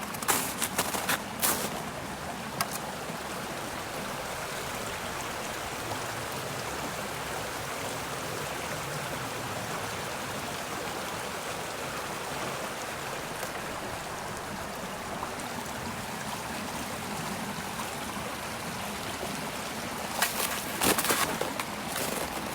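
Footsteps crunching on the trail in the first second or so and again near the end. Between them is a steady, even rush of outdoor noise.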